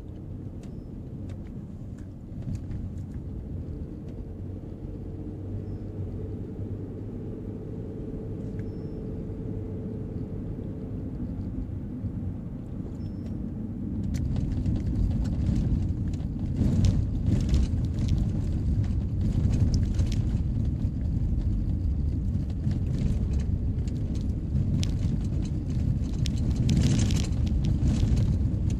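A car driving with steady low engine and tyre noise on smooth pavement; about halfway through, the road turns to gravel and the noise grows louder, with stones crackling and pinging under the tyres.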